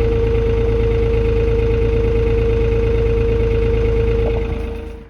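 Vehicle engine running steadily with a low rumble and a steady whine, then stopping near the end.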